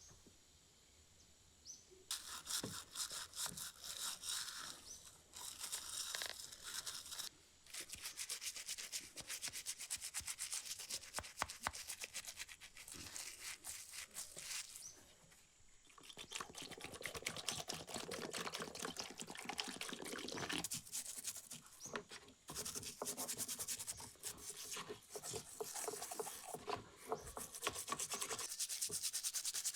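Rapid, scratchy hand scrubbing on the metal of an antique oil lamp. It comes in several bouts with short pauses, starting about two seconds in.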